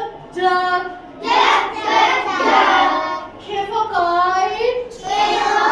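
A group of young children chanting in unison in a sing-song voice, in phrases of about a second each.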